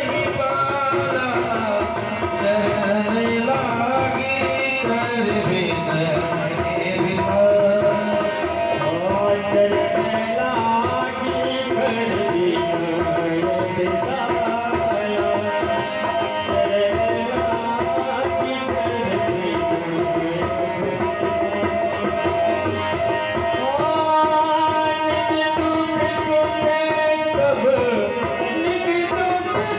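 Hindu devotional kirtan music: a melody carried over a steady, fast beat of hand drum and small jingling percussion.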